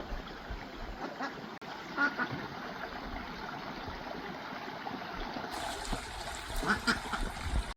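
Short animal calls, such as duck quacks, about two seconds in and again near the end, over a steady rushing noise like running water.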